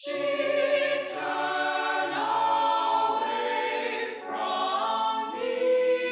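Eight-voice mixed a cappella ensemble singing in close harmony. The voices come in together on a full chord and move through held chords that change about once a second, with a sharp 's' sung together about a second in.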